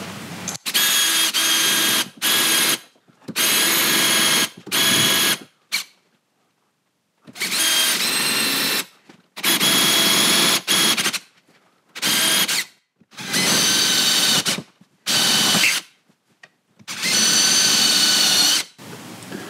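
Cordless drill boring holes into a boat's wooden stem, running in a string of short bursts of one to two seconds, each a steady whine.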